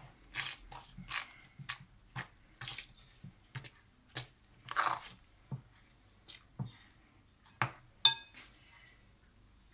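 A fork stirring a thick flour, milk and yeast starter in a glass bowl: irregular wet scraping strokes, then one sharp, ringing clink as the fork strikes the glass about eight seconds in.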